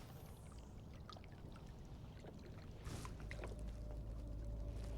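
A distant motorboat engine running, getting steadily louder from about three seconds in, with a few faint clicks before it.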